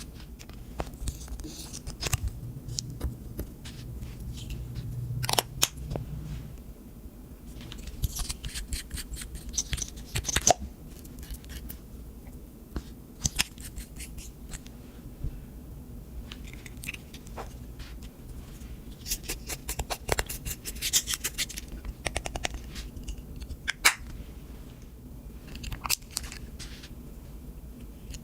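Slime being squished and stretched by hand, making irregular sticky clicks and crackling pops, with a few quick runs of crackles.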